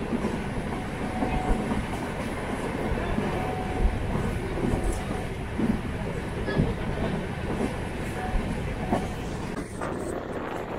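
Passenger train running along the rails, heard from inside a coach at the window: a steady rumble and rattle of the wheels and coach, with a few irregular sharp knocks.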